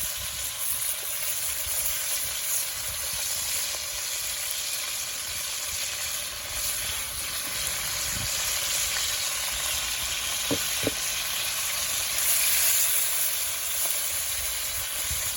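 Chicken pieces frying in hot oil in a pot, a steady sizzle with a couple of small knocks about ten seconds in.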